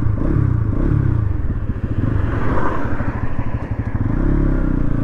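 Bajaj Pulsar NS200's single-cylinder engine running under way as the bike rides off and picks up speed, its note rising and falling several times before settling into a steadier run near the end.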